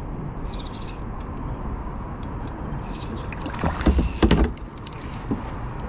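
Handling noise in a plastic kayak: a steady low rumble with scattered light clicks, then a burst of loud knocks and thumps about four seconds in as the spinning reel and hand knock against the hull and camera.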